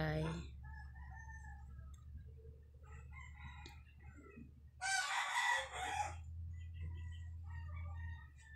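A rooster crows once, about five seconds in, over a steady low hum.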